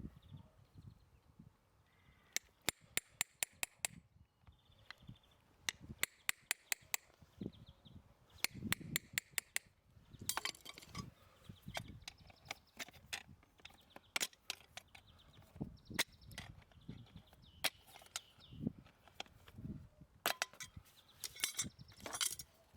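Farrier's metal hand tools working a horse's hoof: bursts of rapid sharp clicks and scrapes, several strokes a second, with pauses between the bursts.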